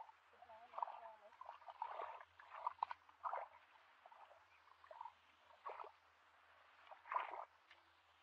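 Hands squelching and sloshing through shallow muddy water and mud, feeling for fish: a string of irregular wet splashes, the loudest about seven seconds in.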